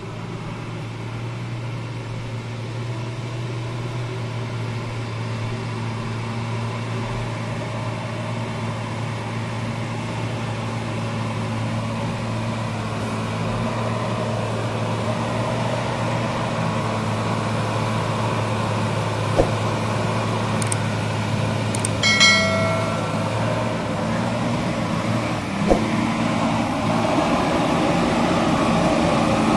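Tata 4x4 truck's diesel engine pulling steadily up a steep, slippery mud slope, growing louder as the truck approaches. About two-thirds of the way through there is a brief high-pitched tone, with a couple of sharp clicks around it.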